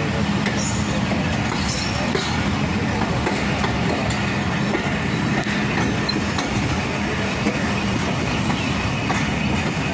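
Passenger train pulling out and gathering speed, heard from an open coach window: a steady noise of wheels running on the rails, with a few faint clicks.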